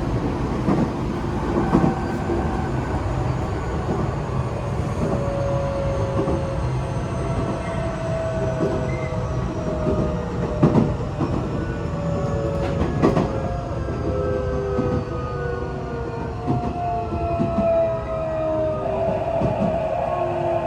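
Running sound heard inside a Tokyo Metro 8000-series train: a steady rumble of wheels on the track with several motor whine tones slowly falling in pitch. A few sharp knocks sound through it, the loudest about eleven seconds in.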